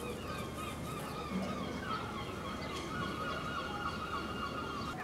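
Herring gull calling: a few short calls, then one long, even whining call held from about two seconds in until near the end, over a steady low background noise.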